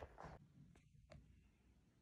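Near silence: faint room tone, with a brief rustle fading out at the start and two faint clicks about a second in.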